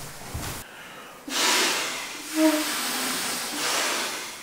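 Long rush of air as inflatable sleeping pads are blown up, starting about a second in and running on steadily.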